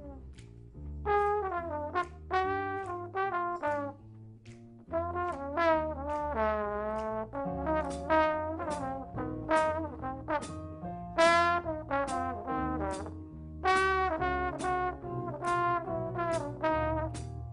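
A student brass ensemble playing a holiday piece: a melody of separate notes over a low bass line.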